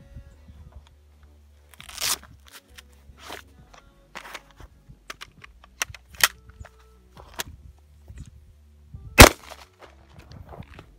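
Gunshots at a shooting range: about six sharp reports at uneven intervals, the loudest coming late, over background music.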